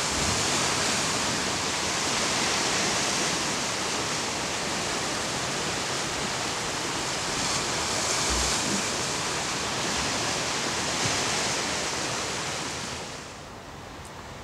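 Ocean surf washing against a rocky shoreline: a steady rushing wash that swells and eases, dropping to a quieter level near the end.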